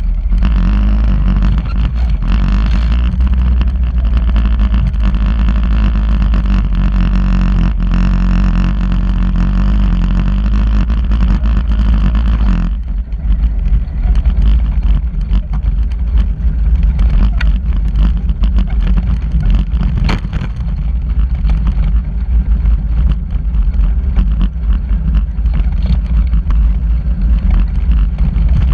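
Engine of an off-road vehicle driving along a dirt track, with a steady low drone; the higher part of the engine sound drops away suddenly about thirteen seconds in while the low drone keeps going.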